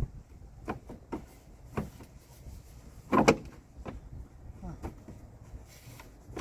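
A car's plastic tail light housing being handled and fitted back into the body. It gives a few light knocks and clicks, with one louder clatter about three seconds in.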